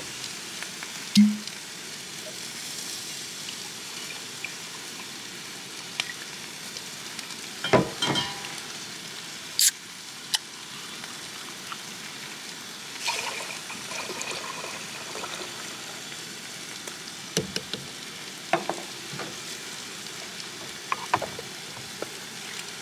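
Steady sizzling hiss from a camp grill, with scattered clinks, knocks and clicks as a whiskey-and-ginger-beer mule is mixed. A low thud comes about a second in, and the sharpest click comes near the middle.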